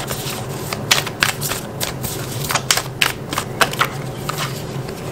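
A deck of Light Seer's Tarot cards being shuffled overhand, the cards slapping and clicking against each other in irregular sharp snaps.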